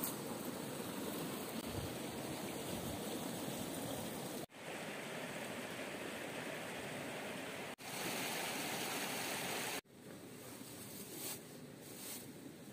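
A fast-flowing stream rushing steadily. The sound breaks off abruptly three times and comes back each time at a slightly different loudness, quieter after the last break.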